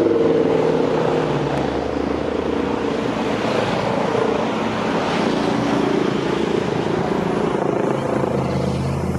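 AgustaWestland AW139 police helicopter flying low overhead: its rotor and twin turbines make a loud, steady drone with a low hum.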